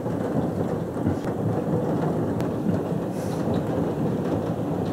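Thunder rumbling low and steady during a thunderstorm, with a few faint sharp ticks.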